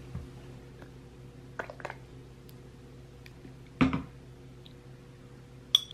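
Tableware being handled on a table: a few soft clicks, a heavier knock about four seconds in and a sharp click near the end, over a faint steady hum.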